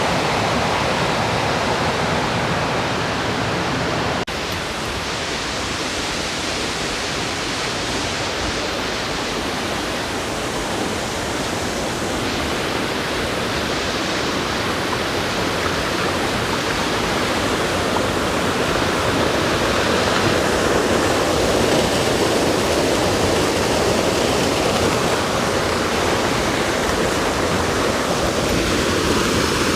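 Waterfall: the steady, loud rush of falling water, with a short break about four seconds in.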